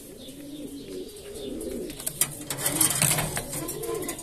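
Domestic pigeons cooing continuously in a loft, several calls overlapping. In the middle comes a brief burst of rustling and clicking, the loudest part.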